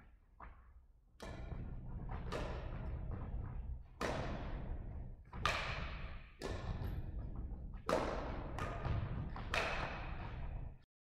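About eight sharp strikes at irregular gaps of about a second, each echoing through a large sports hall: badminton rackets hitting a shuttlecock back and forth in a rally, over a low steady rumble. The sound cuts off abruptly near the end.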